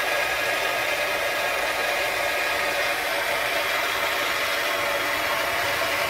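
Gas torch flame hissing steadily under a belt buckle, heating it so the solder on the back of the custom crest flows and bonds it down.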